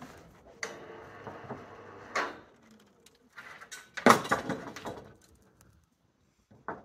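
Knocks and scraping from a sheet of OSB board being hoisted and handled at the top of the scaffold, with one loud clattering knock about four seconds in.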